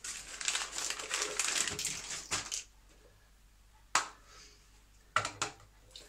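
Rustling, crinkling handling noise for about two and a half seconds, then a single sharp click about four seconds in and a short run of clicks near the end.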